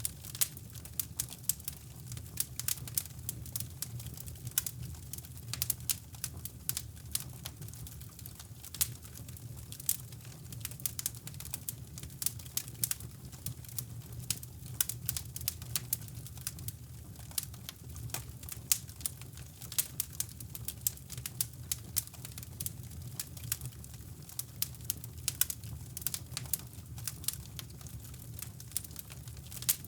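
Crackling wood fire in a fireplace: irregular sharp pops and crackles over a steady low rumble of brown noise.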